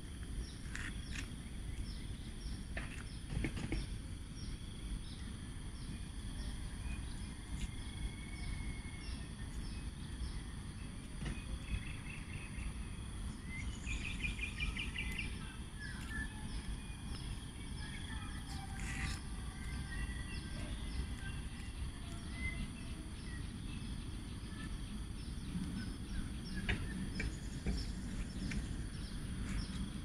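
Dawn ambience of scattered bird calls and whistles over a steady high insect drone, with a quick run of repeated bird notes about halfway through; a low rumble runs underneath.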